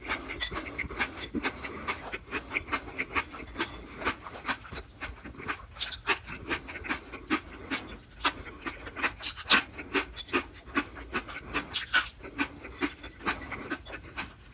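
Close-miked chewing with the mouth closed: irregular mouth clicks, several a second, over steady breathing-like hiss.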